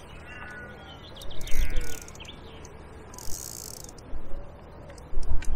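Small birds chirping and singing in short curved notes. Several low thumps, loudest about one and a half seconds in and again near the end, and a brief high hiss a little after three seconds.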